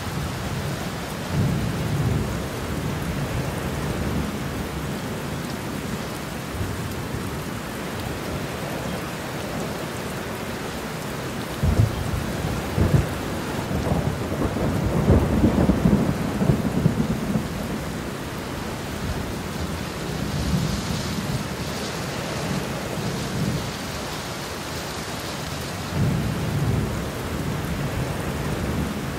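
Steady heavy rain with rolling thunder: low rumbles swell near the start, a couple of sharp cracks about twelve seconds in lead into the loudest, longest rumble, and another rumble comes near the end.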